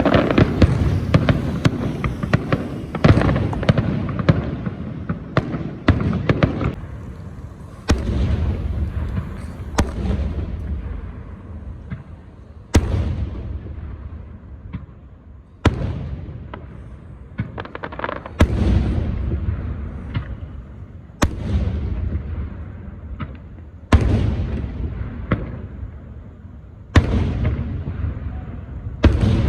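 A series of sharp bangs, one every two to three seconds, each followed by crackling and a low rumble that die away before the next.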